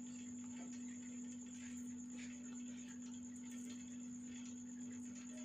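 Faint soft scraping and tapping of a small knife peeling garlic and shallot cloves over a wooden board, a few light strokes scattered through. Behind it runs a steady low hum and a thin high whine.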